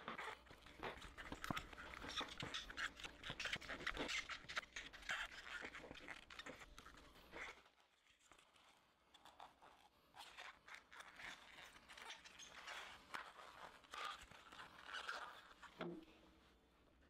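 Faint crackling and rustling of a scored foam core board being flexed into a curve and handled in gloved hands: a dense run of small clicks and creaks in the first half, sparser after about halfway.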